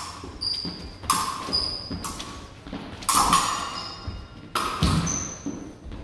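Épée fencers' footwork on a wooden gym floor: sharp stamps and shoe squeaks a few times, with brief high metallic pings of the steel blades touching.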